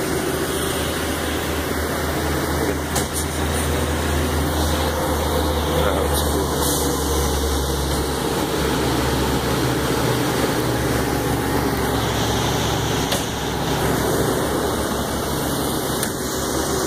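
Fire department utility truck's engine idling steadily, a constant low hum.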